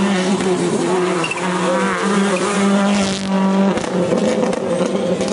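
Rally car engine running loudly, with the revs rising a little past three seconds in.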